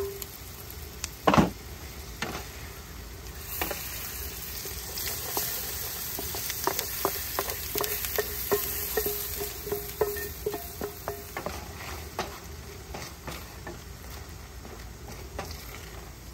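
Shrimp curry sizzling in a pan while a spoon stirs it, with many short clicks and scrapes of the spoon against the pan, some of them ringing briefly. One loud knock comes about a second in.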